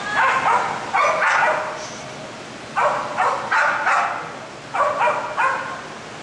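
A dog barking excitedly in quick runs of two to five barks, about fifteen barks in all, as it runs an agility course.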